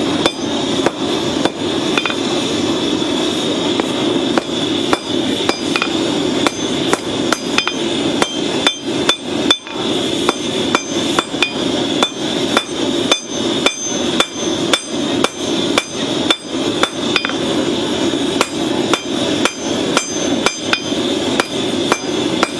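Hand hammer striking red-hot rasp steel on an anvil. The blows are sparse at first, then come steadily at about two a second, each with a short metallic ring. Underneath runs the steady rushing of the forge.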